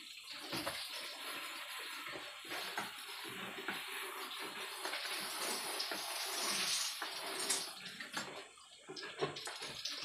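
Knapsack sprayer spraying disinfectant in a steady hiss that swells about six to seven seconds in, with scattered light knocks from the bamboo slat floor.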